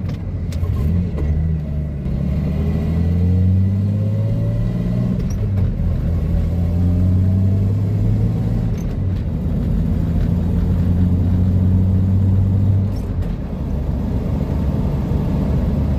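A 1987 Jeep Comanche's AMC 4.0L straight-six is heard from inside the cab as the truck drives. It climbs in pitch under acceleration, breaks briefly as the five-speed manual is shifted, and eases off about thirteen seconds in.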